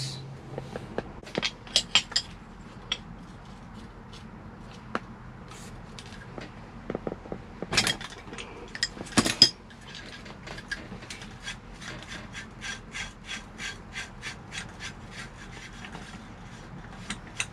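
Truck gear shift knob being worked loose and turned off its shift lever by hand. Scattered light clicks and two sharper knocks, then a steady run of light clicks, about three a second, from about ten seconds in.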